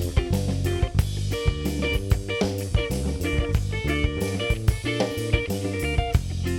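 Instrumental passage of a pop-rock song: guitar and bass over a drum kit keeping a steady beat, with no singing.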